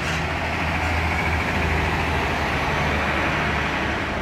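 Heavy diesel trucks, a Hino fuel tanker and then a Mercedes-Benz tractor unit, driving slowly past with a steady low engine sound.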